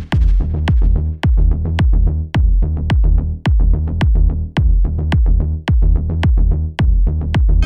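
Dark techno track: a heavy drum-machine kick a little under twice a second over a deep bass, with sharp percussive clicks between the kicks.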